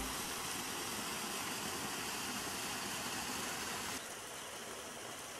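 Steady background hiss with no distinct events, stepping a little quieter about four seconds in.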